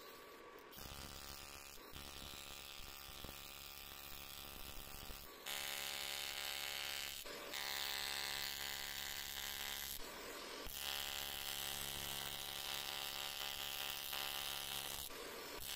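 AC TIG welding arc on an aluminium casting, a steady electric buzz. It grows louder about five seconds in and breaks off briefly twice as the arc stops and restarts.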